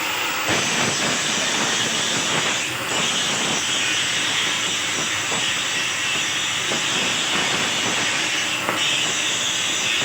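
Stick (arc) welding: a steady, loud crackling hiss with irregular pops and sputters.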